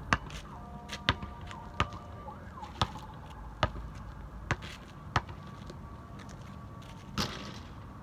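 Basketball dribbled on a paved outdoor court: sharp single bounces about once a second at uneven spacing, with a longer, rougher thud near the end.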